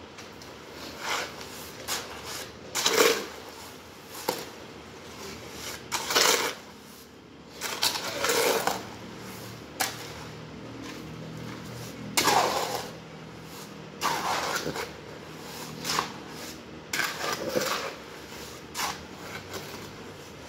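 Hoe blade scraping and slopping through wet sand-cement mortar in a steel wheelbarrow tray, in about a dozen separate strokes, one every second or two.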